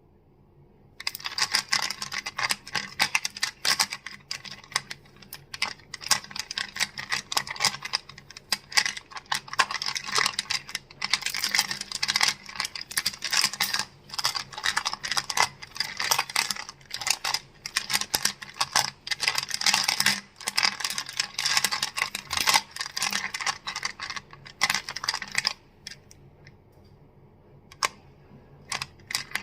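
Crystals being tapped and clacked together in quick, dense clicking that starts about a second in. Near the end it thins to a few scattered clicks, then picks up again.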